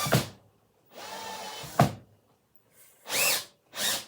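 Cordless drill-driver run in short trigger bursts, backing screws out of a wooden armchair frame; the motor spins up and winds down with each pull. There is a sharp click a little under two seconds in. The screw is going in at an angle.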